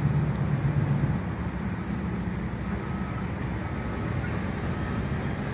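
Steady low rumble of motor-vehicle noise, with a few faint ticks about two and three and a half seconds in.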